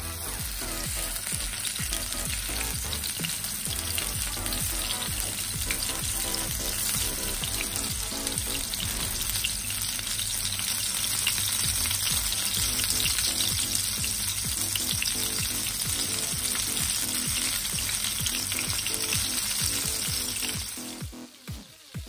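Stuffed chicken breast sizzling and crackling in hot oil in a nonstick frying pan as it pan-fries. The sizzle falls away sharply near the end.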